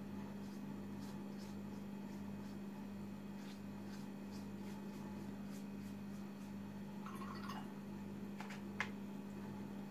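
Faint, soft strokes of a paintbrush on wet watercolour paper, a few brief scratchy swishes, over a steady low electrical hum.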